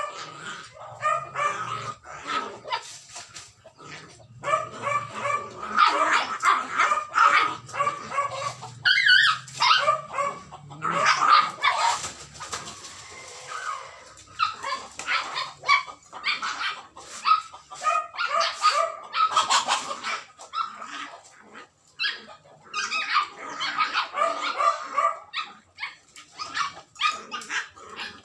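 Two puppies play-fighting, with many short yips and barks in quick runs and a few brief pauses between them.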